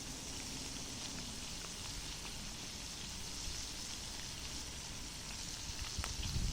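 Shrimp sizzling as they fry in hot oil: a steady hiss with scattered small pops, and a brief louder low rumble near the end.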